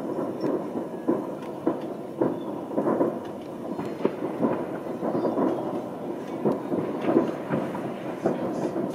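Many distant fireworks going off at once: an unbroken rolling rumble of irregular bangs and pops, none standing clear of the rest.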